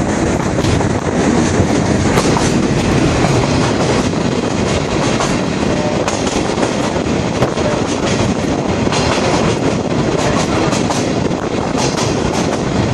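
Sagano scenic railway train running along the track, a steady rumble of wheels on rails with scattered clicks, heard at an open carriage window.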